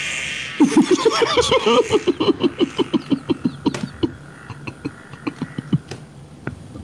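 A person laughing hard: a fast run of ha-ha pulses that starts about half a second in, after a short breathy rush, and trails off over several seconds.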